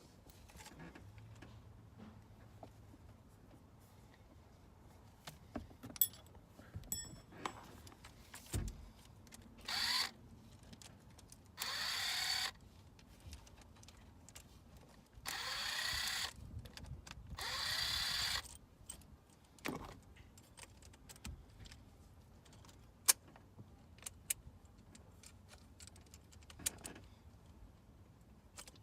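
A small power tool such as a cordless drill or driver runs in four short bursts, each spinning up as it starts, likely driving in the steering-wheel hub bolts. Light clinks and clicks of hand tools and metal parts sound between the bursts.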